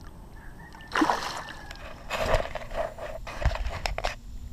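Water splashing and sloshing beside a small boat's side in several short bursts, with a low thump about three and a half seconds in.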